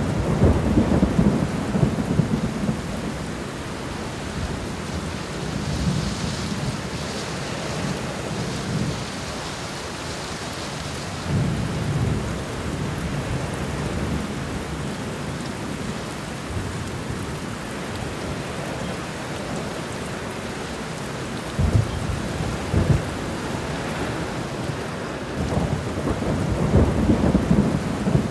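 Thunderstorm: steady rain falling, with thunder rumbling again and again. The heaviest rolls come in the first few seconds, about twelve seconds in and near the end, and two sharper claps come a little past the middle.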